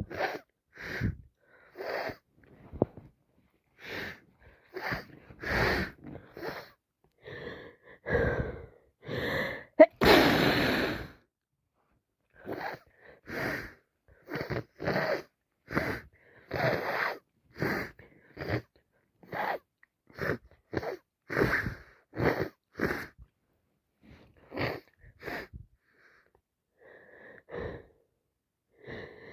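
A person with a heavy head cold sniffing and breathing hard through a congested nose, about twenty short noisy bursts roughly a second apart, with one loud, sudden burst about ten seconds in.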